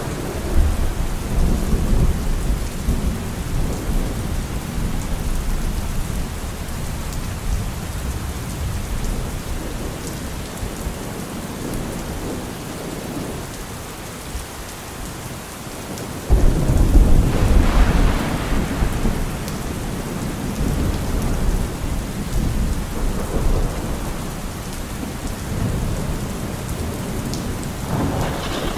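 Thunderstorm: rain falling steadily, with thunder rumbling in the first few seconds and a sudden loud thunderclap a little past halfway that rolls on for several seconds, then a smaller rumble near the end.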